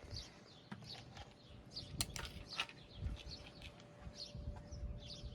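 Faint scattered bird chirps with occasional light clicks; a faint steady hum comes in about halfway.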